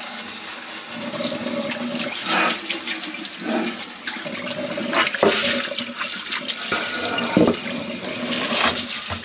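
Pull-down kitchen faucet sprayer running, water spraying over a bamboo cutting board and splashing into the sink as it is rinsed. The water shuts off suddenly at the end.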